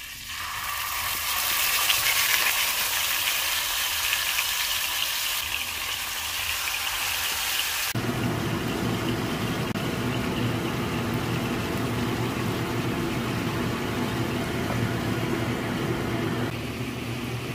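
Pork belly frying in hot oil in a ceramic frying pan, with a loud, steady hissing sizzle. About eight seconds in, a dark sauce is poured into the pan and the sound abruptly turns lower and rougher as the liquid cooks.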